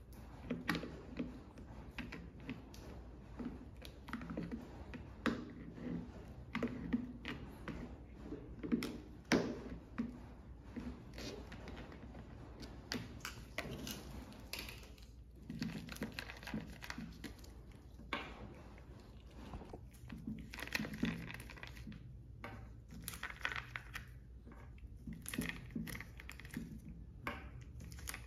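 Irregular plastic clicks, taps and knocks from handling a 12 V lead-acid car battery: pliers and fingers working its yellow plastic vent caps loose and pulling them out of the cells. A faint low hum sits underneath.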